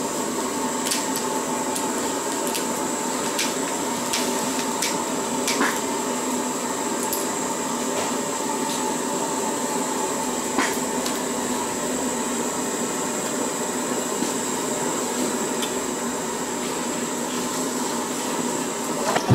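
A steady mechanical drone from a motor or blower, holding two constant tones, one middling and one high, with scattered sharp clicks and cracks as kitchen scissors cut through a raw lobster's shell and the pieces are handled.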